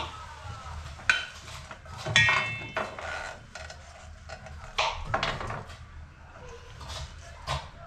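Pots, pans and metal utensils clattering in a string of separate knocks, with one ringing metallic clang about two seconds in.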